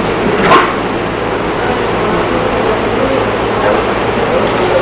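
A continuous high-pitched chirring tone, pulsing evenly several times a second, over a steady hiss and a low hum, with one brief click about half a second in.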